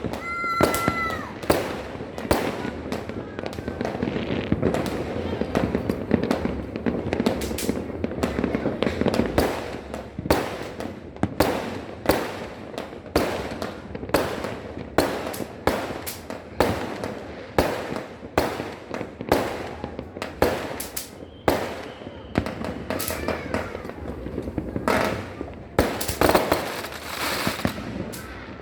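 Firecrackers and fireworks going off over and over: sharp bangs at uneven spacing, about two or three a second, with a brief whistle just after the start and voices underneath.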